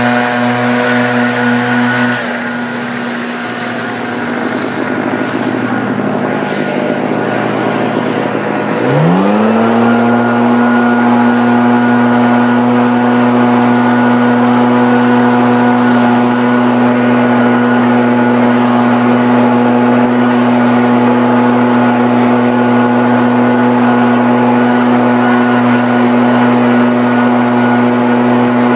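Two-stroke backpack leaf blower at full throttle, easing off about two seconds in, then revving back up about nine seconds in and holding steady at full speed.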